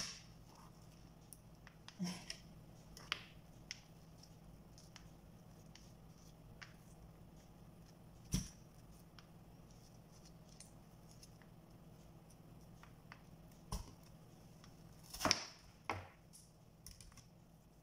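Occasional soft clicks and knocks as watermelon chunks and seeds are handled over a plastic cutting board and dropped into a plastic blender jar, with a couple of louder knocks near the end, over a faint steady low hum.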